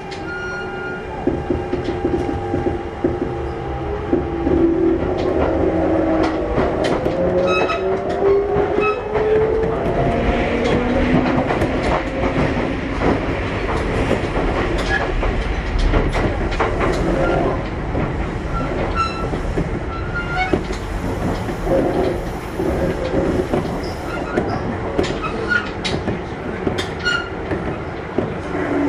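Kintetsu 1021 series train running, heard from inside the car. Its Hitachi GTO-VVVF inverter and traction motors whine in several tones that rise in pitch over the first ten seconds or so as the train accelerates. After that the wheels clatter over rail joints, with short squeals from the wheels.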